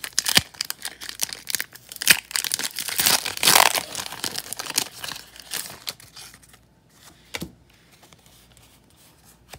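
Foil wrapper of a Pokémon TCG Rebel Clash booster pack being torn open and crinkled. The crackling is loudest about three to four seconds in and dies down after about six seconds to quiet handling.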